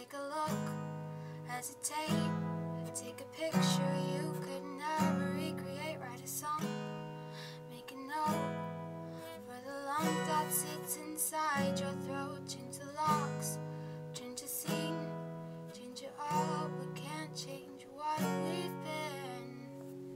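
Acoustic guitar strummed, one chord struck about every second and a half and left to ring; the last chord comes near the end and fades out.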